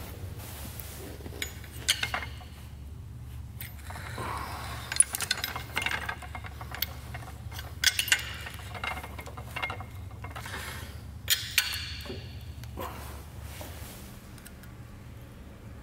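Open-end spanner clinking against the hex nuts and threaded rods of a bolt puller as the nuts are turned: sharp metal clicks and clinks at uneven intervals. A steady low hum runs underneath and drops away near the end.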